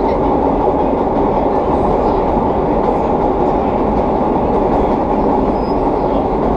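Vintage 1930s R1/9 subway cars running at speed, a loud, steady rumble of wheels on rail. It is mixed with the growl of their straight-cut traction gears.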